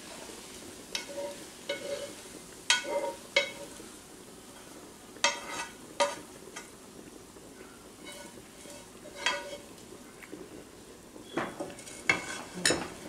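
Metal spoon scraping and tapping fried corn out of a hot skillet into a bowl: a dozen or so sharp scrapes and taps against the pan, more of them near the end, over a steady sizzle of frying.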